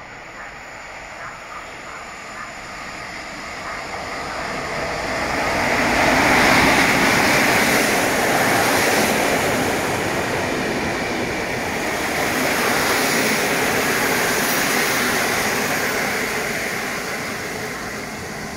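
Passenger train hauled by a PKP EP07 electric locomotive pulling into a station. The rush of wheels on rails builds as it approaches, is loudest as the locomotive and coaches roll past close by, and eases near the end.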